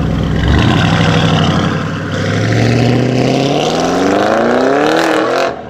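Audi RS6 Avant's twin-turbo V8 pulling away hard, its pitch rising steadily for about three seconds before the sound cuts off suddenly near the end.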